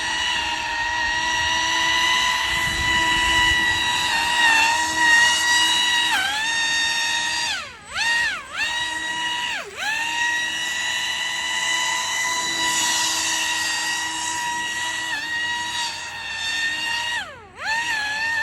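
Pro Boat AeroTrooper 25-inch RC airboat's brushless electric motor and fan propeller running at speed with a steady high whine. The pitch dips sharply and climbs back several times as the throttle is eased off and reopened, a cluster of dips near the middle and one more near the end.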